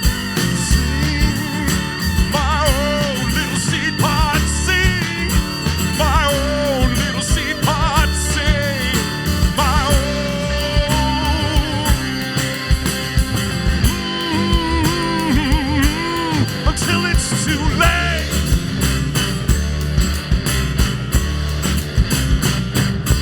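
Rock band playing an instrumental passage: a lead line with wavering vibrato over electric bass and a steady drum beat, electric guitar among the instruments.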